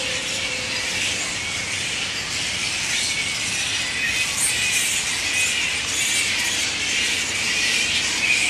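A colony of grey-headed flying foxes at their roost, giving a steady, dense din of high-pitched squealing and chattering calls.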